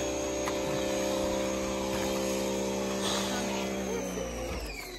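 Electric 2200 PSI pressure washer (Giraffe Tools, 1800 W) running steadily, its motor whine under the hiss of the spray, then winding down in pitch and stopping near the end.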